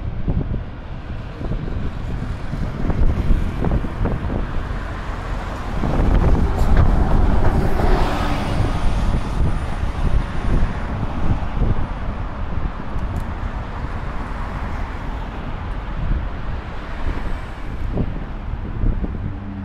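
City street traffic: buses and cars running along the avenue, with one vehicle passing close and louder about a third of the way in, then fading away.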